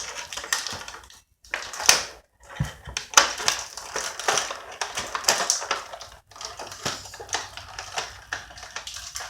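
Action-figure packaging being opened by hand: irregular crackling and crinkling of stiff plastic and cardboard, with many sharp clicks and snaps and two brief pauses.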